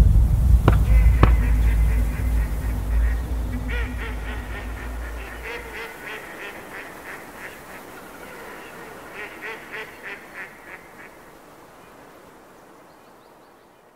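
A sudden deep boom whose low rumble dies away over about six seconds, then clusters of goose honks that fade out near the end.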